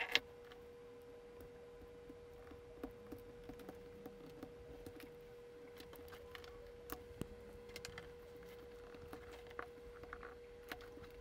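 Faint crinkling and small clicks of fingers peeling tape and soft lead shielding off a Geiger–Müller tube, the sharpest click right at the start. A steady faint hum sits underneath.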